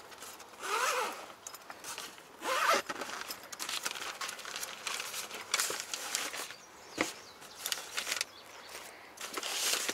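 Zippers on a soft gear bag being pulled open, with two louder rasps about one and three seconds in. Fabric rustles and gear is handled, with a sharp click about seven seconds in.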